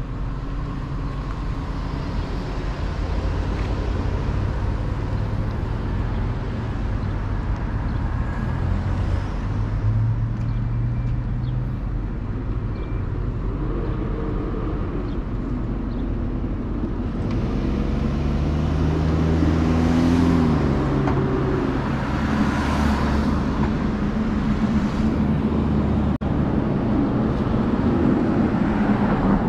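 Street traffic: cars running past with a steady engine hum. About two-thirds of the way through, a heavier engine rises in pitch and then drops as a vehicle drives by, the loudest moment of the stretch.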